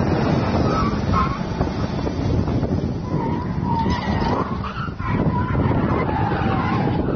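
A motor vehicle's engine running as it drives over dirt, with wind buffeting the microphone. A faint wavering whine rises and falls over the second half.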